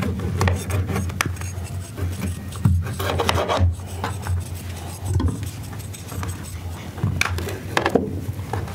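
Kitchen objects being scraped and rubbed, a rasping sound broken by scattered clicks and knocks.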